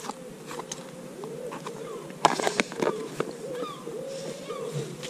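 A pigeon cooing over and over, with a few higher chirps from other birds. Plastic bait tubs click and knock as they are handled, the sharpest knocks a little over two seconds in.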